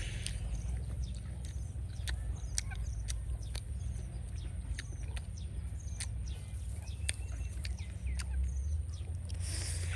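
Birds chirping faintly over a steady low rumble, with scattered sharp clicks throughout and a brief burst of noise near the end.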